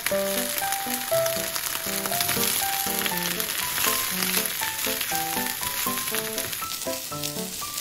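Oil sizzling steadily in a frying pan as chopped green onion and pieces of chicken nugget stir-fry, stirred with a silicone spatula, over light background music.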